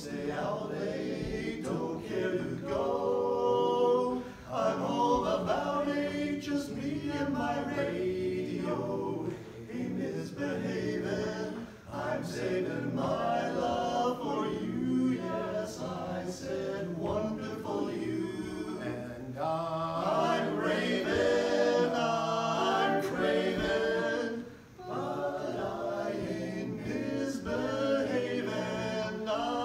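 Men's barbershop quartet singing a cappella, four voices in close harmony, with short breaks between phrases.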